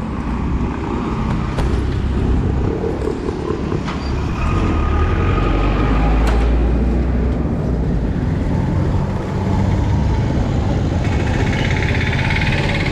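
Street traffic: engines of passing cars, buses and trucks running, with the heaviest, deepest passing noise about halfway through and a few sharp clicks along the way.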